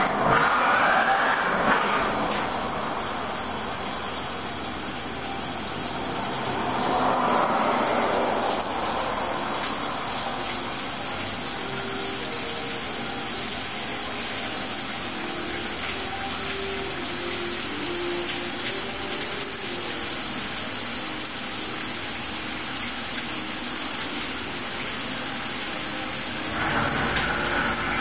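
CNC vertical milling machine cutting a part under flood coolant: a steady splashing hiss of coolant spray over the running spindle and cut. About 26 seconds in, the sound grows slightly louder and brighter.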